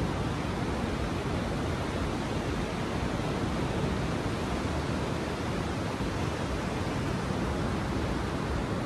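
Steady rushing noise of ocean surf and wind, an even roar with no breaks.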